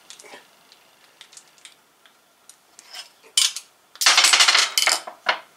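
Metal hand tools clattering and clicking on a steel workbench: a few light clicks, a sharp knock about three seconds in, then a burst of rapid metallic clicks for about a second.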